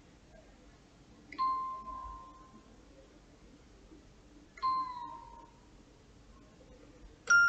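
Sparse background music: a single high ringing note struck twice, about three seconds apart, each sagging slightly in pitch as it fades. Just before the end a quicker run of higher notes begins.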